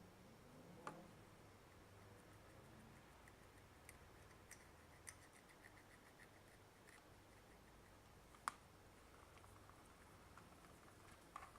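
Near silence: room tone with a few faint sharp clicks and a run of light ticking, the small sounds of a circuit board being handled and wiped clean.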